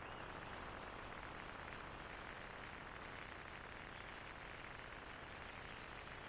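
Faint, steady hiss with no distinct sounds in it.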